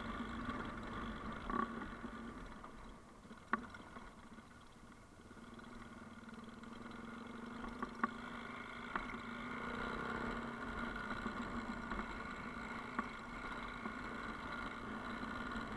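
Vehicle engine running steadily at low revs on a dirt track. It dips in level about three seconds in and builds again after about six seconds, with a couple of sharp knocks.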